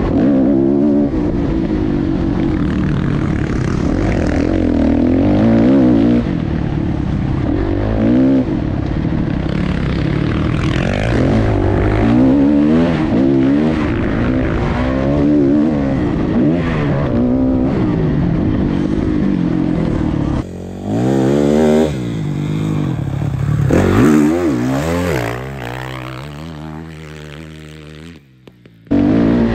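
Dirt bike engine revving hard over and over, its pitch climbing and dropping with each throttle change and gear shift on a motocross track. Near the end the engine fades away over a few seconds, drops out briefly, then comes back loud.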